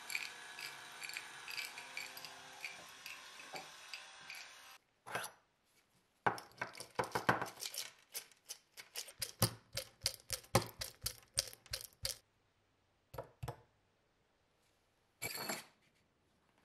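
Tumbling media rattling inside a metal oil bottle spun by a cordless drill, a steady rattle with a regular pulse. It stops after about five seconds, and then small stones clatter and clink onto a wooden workbench as the bottle is tipped and shaken empty, in many quick separate clinks, with a few last ones near the end.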